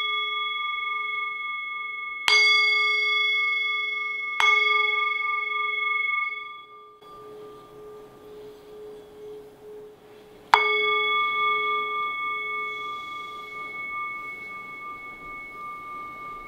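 A hand-held brass singing bowl is struck with a wooden mallet three times, about two, four and ten seconds in. Each strike rings out as a steady, slowly fading chord of bell tones, used as vibration during a bodywork session. The ringing cuts off abruptly at about seven seconds, and the last strike rings on to the end.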